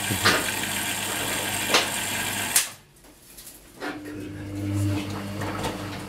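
Hoover HTC247 top-loading washing machine early in a cottons wash: the hiss of water filling runs steadily, then cuts off sharply with a click about halfway through. About a second later, after another click, the machine's motor starts with a steady low hum.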